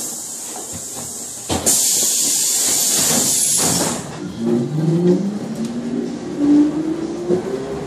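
Trolleybus doors closing with a loud hiss of compressed air lasting about two seconds, then the electric traction motor whining up in pitch as the trolleybus pulls away from the stop.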